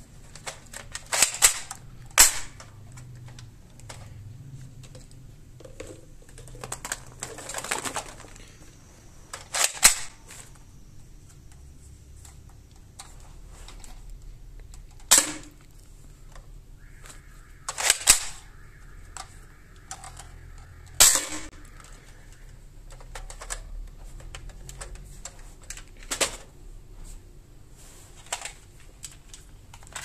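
Toy pump-action shotgun being pumped and fired, a sharp plastic snap every few seconds, about nine in all, with clicks and rustling from handling in between.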